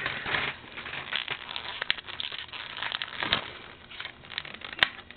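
Plastic DVD packaging crinkling and crackling as it is handled, with irregular small clicks and a sharp click near the end.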